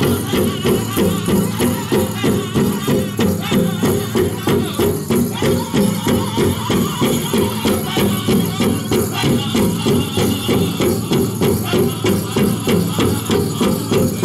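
Powwow drum group playing a fast, steady beat for the men's chicken dance, about three strokes a second, with the jingling of the dancers' leg bells.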